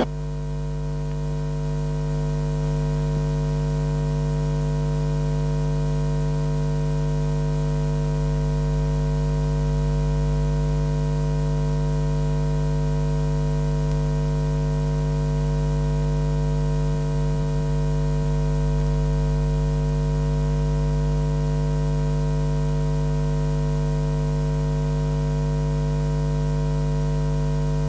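A steady electrical mains hum with a stack of overtones, unchanging throughout, which cuts in and cuts out abruptly.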